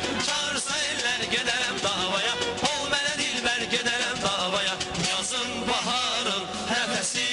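Male vocal group singing a song into microphones over instrumental accompaniment with a steady beat, the voices sliding and ornamenting the melody.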